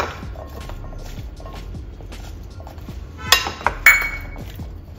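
Boiled chickpeas tipped from a small steel cup into a ceramic salad bowl, a patter of small soft knocks, then two sharp ringing clinks of kitchenware a little past three seconds in.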